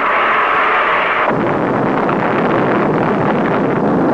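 Rocket engine roar, loud and steady: a bright hiss that deepens about a second in into a fuller, wider roar.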